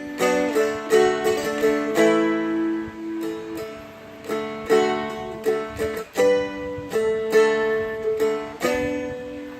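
Seagull Merlin M4, a four-string fretted dulcimer-style instrument, strummed and picked with a flatpick, playing a slow chord progression with ringing, sustained chords and single notes changing every half second or so.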